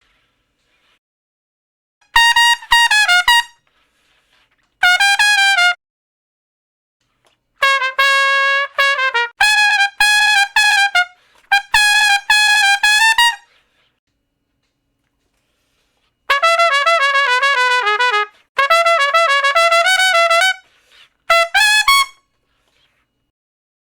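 Solo trumpet playing several short phrases of quick notes, separated by pauses of silence.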